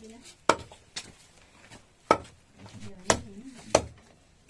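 Food being chopped with a blade: about six sharp chops at an uneven pace, half a second to a second apart.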